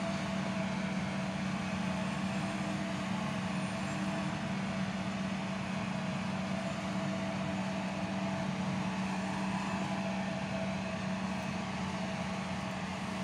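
Self-propelled forage harvester and its attending tractor running steadily at work, chopping maize for silage: a continuous engine drone with a constant hum.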